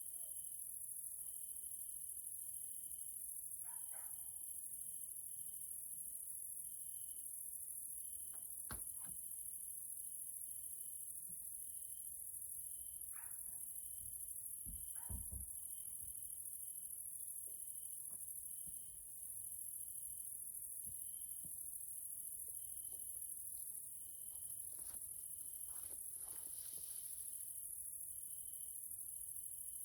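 Grasshoppers stridulating: a continuous high-pitched buzz, with a separate short chirp repeating about twice a second. A few soft knocks come through, the loudest about halfway.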